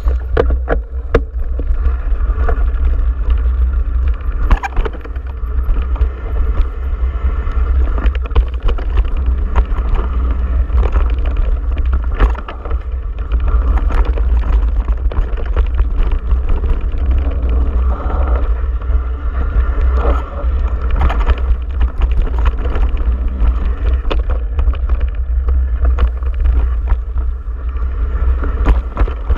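Mountain bike ride down a dirt trail heard through an action camera's microphone: a steady, heavy wind rumble on the mic with frequent rattles and knocks from the bike and mount over bumps, over tyre noise on the dirt.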